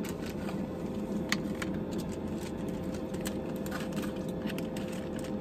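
Scattered light clicks and crinkles from a plastic bag of cookie dough being handled, over a steady low hum that holds one constant tone.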